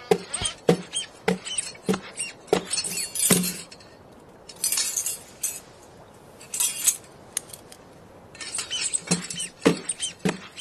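Drum kit and percussion props played as live sound effects: a run of sharp taps and clicks with metallic jingling, and a few short bursts of cymbal-like hiss in a quieter middle stretch.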